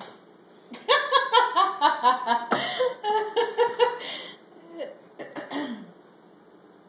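A burst of laughter: a quick run of 'ha-ha' pulses lasting about three and a half seconds, then a few shorter laughs, the last one falling in pitch.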